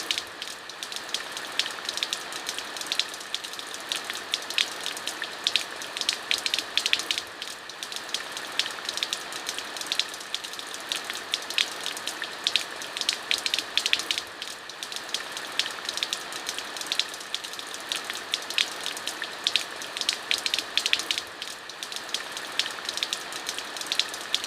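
Steady rain with many distinct drops pattering and ticking close by on a surface, over an even hiss.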